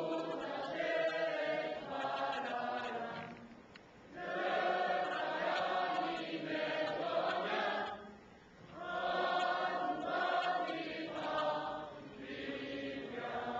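A choir singing in long held phrases, pausing briefly about four and eight seconds in.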